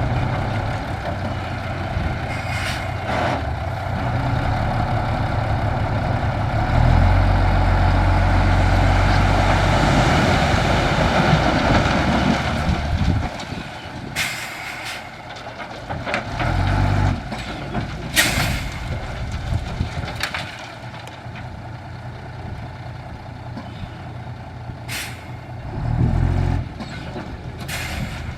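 Heavy dump truck's diesel engine running, louder for several seconds in the first half, then dropping back. Short hisses of air-brake release come several times.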